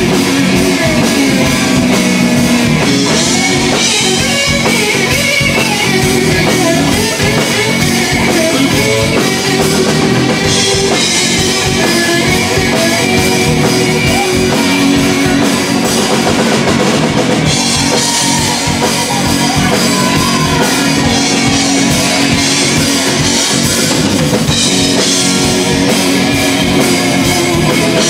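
Live blues-rock band playing loud: electric guitar over a steady drum beat.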